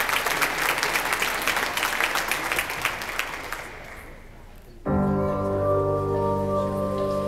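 Audience applause that tapers off over about four seconds. Then, about five seconds in, recorded music starts suddenly over loudspeakers with held, sustained chords.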